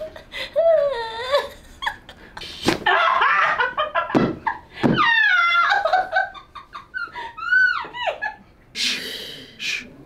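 A woman laughing and letting out high squeals and groans in short bursts, with a few short sharp pops among them: joints cracking under chiropractic adjustments.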